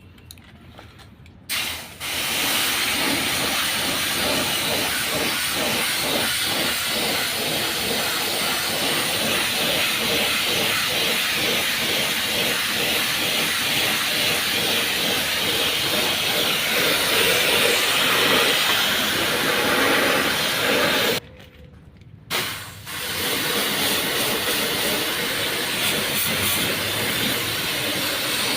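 High-pressure water jet spraying an air conditioner unit during cleaning, a steady loud hiss that starts a second or two in, stops for about a second and a half near the 21-second mark, then starts again.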